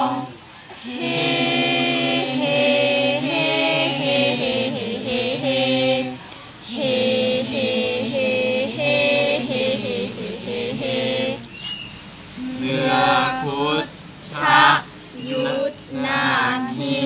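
A small mixed group of young male and female voices chanting a Thai royal barge chant (kap he ruea) in unison and unaccompanied. The chant moves in long, held, wavering phrases with short breaths between them, and breaks into shorter phrases near the end.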